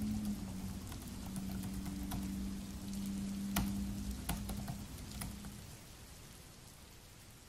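Steady rain with the scattered clicks of typing on a Dell laptop keyboard and a low steady hum underneath. The keystrokes and hum stop about six seconds in, and the rain fades out toward the end.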